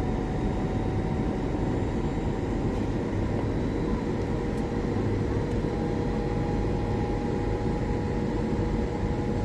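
Steady jet-airliner cabin noise inside a Boeing 737 MAX on descent: a broad rushing hum with a few faint steady engine tones, one more tone joining about halfway through.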